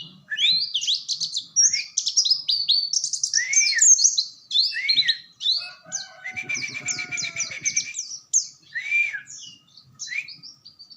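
White-eye (pleci) singing a fast, unbroken song of high chirps, quick rising and falling sweeps and trills: the long rolling 'gacor' song that bird keepers call ngerol. About halfway through it breaks into a dense, rapid trill lasting over a second.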